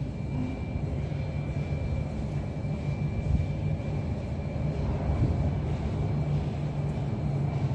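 81-717.5P metro train approaching through the tunnel: a low steady rumble that grows slowly louder, with a faint steady high whine above it.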